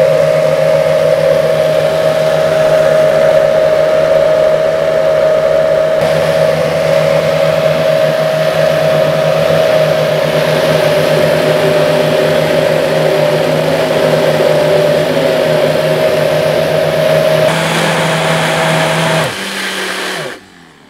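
Two high-power blenders, a Vitamix Turboblend VS and a 3 HP Omega BL630, running slowly with a steady hum, churning a very thick coconut mixture under heavy load without stalling. The motors cut off in two steps near the end.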